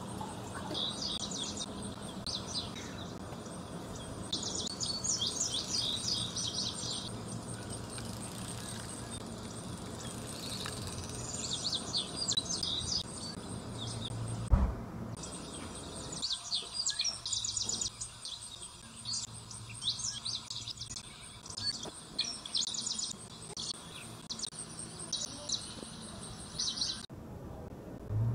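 Small birds chirping in repeated bursts of quick high calls, over a steady faint high-pitched background hiss, with a single thump about halfway through.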